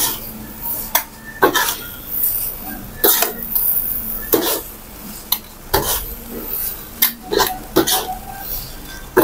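Stainless steel ladle and spatula scraping and knocking against a steel wok as fried rice is stirred and tossed, with irregular clanks every second or so.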